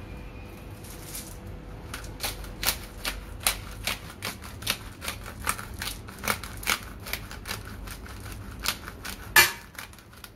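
Black pepper grinder twisted over raw beef, giving a long run of sharp clicks, about two a second, with one louder click near the end.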